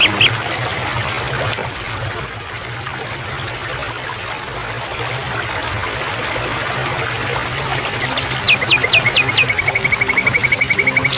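Steady trickle of running water. Near the end a bird sings five or six descending whistled notes, then a rapid even trill.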